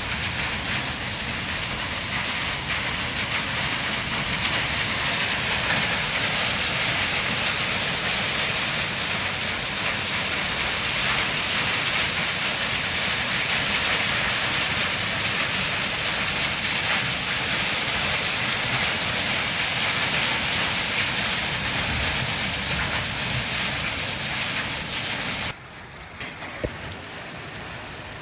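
Heavy rain falling in a steady hiss. About 25 seconds in it drops suddenly to a quieter, lighter patter with a few faint ticks.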